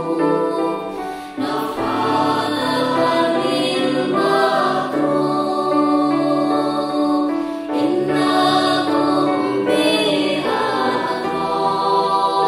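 Choir singing an Arabic qasidah (devotional song) in long, sustained phrases.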